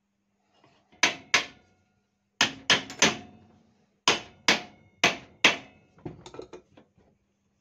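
Hammer blows on steel tubing, ringing metallically: about ten sharp strikes in quick pairs and clusters, then a few lighter taps near the end.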